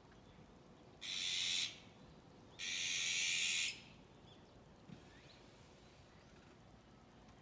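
Azure-winged magpie giving two harsh, raspy calls, the first short and the second about a second long.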